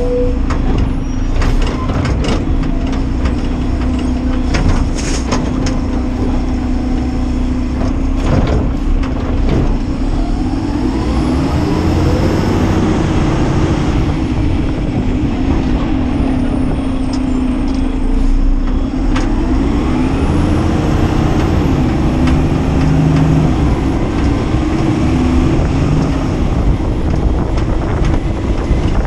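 Side-loader garbage truck's engine running steadily, with a string of sharp clanks and knocks in the first third. The engine revs up twice, about eleven and nineteen seconds in.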